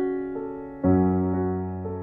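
Background piano music: slow, soft chords, each struck and left to fade, with a new deeper chord about a second in.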